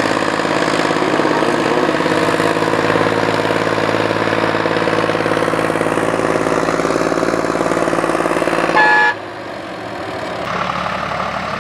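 Ford 7600 and Ford 4000 tractor engines running together under load as the pair tows a heavy cassava trailer: a loud, steady engine note. About nine seconds in there is a short high beep, then the sound cuts abruptly to a quieter engine running.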